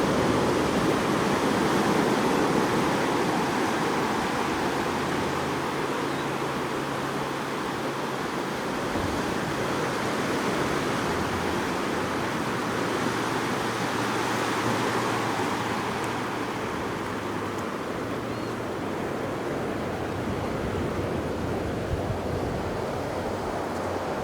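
Ocean surf washing onto a sandy beach: a steady rush of noise that slowly swells and eases.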